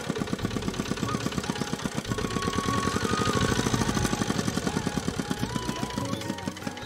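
A small engine running steadily with a quick, even knocking beat of about nine to ten pulses a second.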